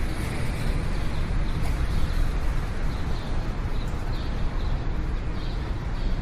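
City street ambience: a steady low traffic rumble with short high chirps now and then.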